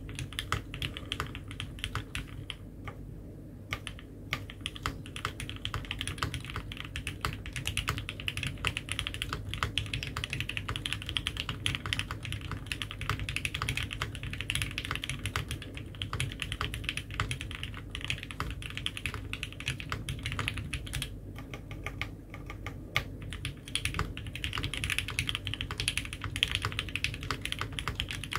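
Continuous fast typing on a Mode 65 custom mechanical keyboard with lubed H1 switches, a foam-dampened POM plate and GMK keycaps: a dense, unbroken stream of keystroke clicks.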